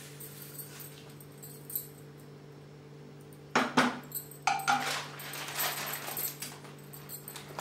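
Cookware handling over a steady low hum: about halfway through, two sharp knocks, then a wooden spatula scraping and clattering in an empty nonstick kadai as the pan is set back down on the gas stove top, with rustling near the end.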